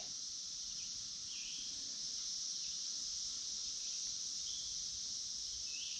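Steady, high-pitched chorus of insects, with a couple of faint short chirps above it.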